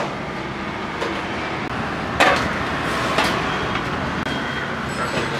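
Busy kitchen and street ambience: a steady noise of traffic and activity, broken by a few sharp clanks of steel plates and vessels, the loudest about two seconds in and another a second later.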